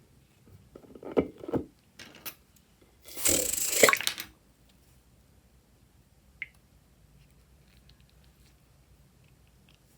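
Slime-making materials being handled: a few sharp clicks and crackles, then about a second of loud hissing, squelching noise a little past the middle, then only faint ticks.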